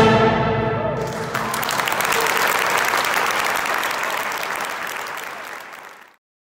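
Choir and chamber orchestra end on a held final chord that dies away about a second in; then an audience applauds, gradually fading and cutting off abruptly near the end.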